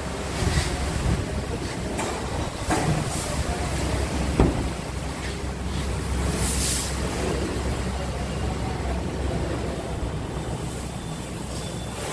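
Steady low rumble with hiss, broken by a few soft knocks near the start and middle and a brief rustle a little past the middle.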